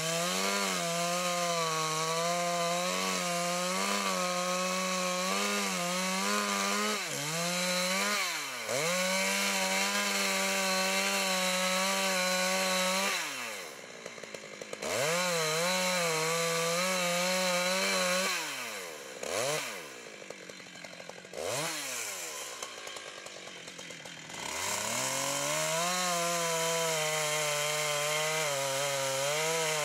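Large two-stroke chainsaw cutting into a thick tree trunk at full throttle, its pitch sagging and wavering under load. About halfway through it drops to idle twice, with a few quick revs between, then goes back to full throttle and cuts on.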